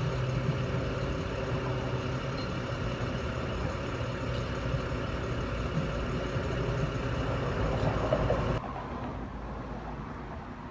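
A motor running steadily with a low hum, like an idling engine; its sound drops suddenly and becomes much quieter about eight and a half seconds in.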